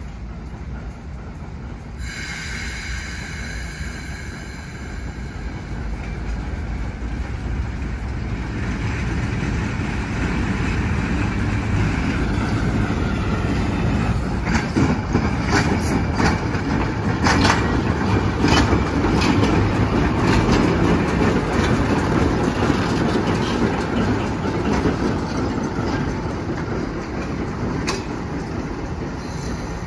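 Excursion train led by an ALCO S2 locomotive with a turbocharged diesel going by. The engine rumble grows louder to a peak a little past halfway, then eases off, with a thin high squeal from the wheels. Near the loudest point, a quick run of clicks as the wheels cross rail joints.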